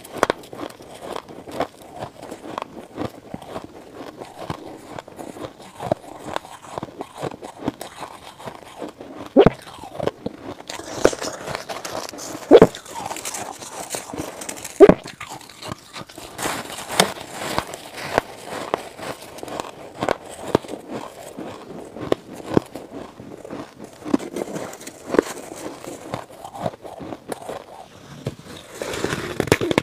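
Close-up crunching and chewing of frosty shaved-ice chunks: a dense run of crisp crackles, with a few loud snaps about a third and halfway through.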